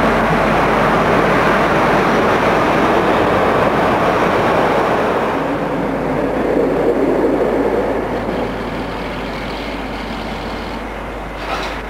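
Electric locomotive hauling a passenger train through the station: a steady rumble and rush of wheels on rails that eases after about eight seconds, with a short clank near the end.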